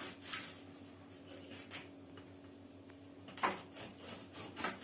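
A knife slicing through a crusty bread loaf on a cutting board: a few short scraping strokes and knocks, the loudest about three and a half seconds in, over a faint steady hum.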